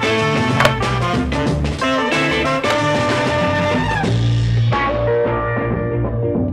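Background music with drums and pitched instruments keeping a steady beat. Over the last couple of seconds its treble fades away and the music turns muffled.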